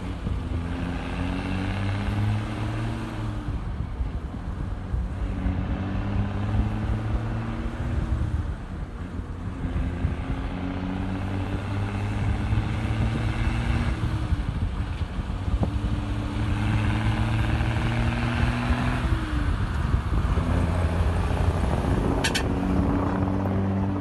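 Mercedes-Benz 1313 truck with a 1518 engine and a straight exhaust accelerating up through its gears. The engine note climbs in each gear and drops at each of about four gear changes, getting a little louder toward the end as the truck passes.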